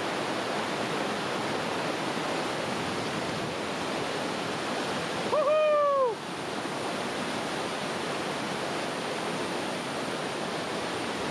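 Steady rush of white water pouring down a small, forceful waterfall over rocks. About halfway through, a voice briefly holds one note that drops away at the end.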